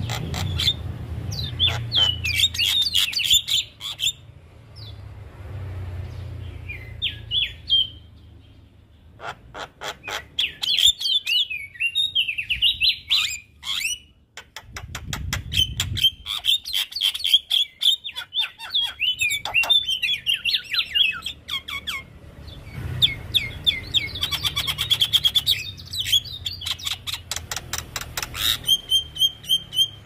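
Javan myna (jalak kebo) in full song: bursts of rapid, harsh clicking notes mixed with whistled chirps and squawks, broken by short pauses.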